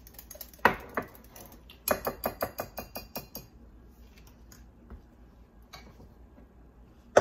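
A utensil stirring egg into a thick sauce in a glass bowl, clicking against the glass. One sharp knock comes early, then a quick run of about six clicks a second for a second and a half, then a few faint taps.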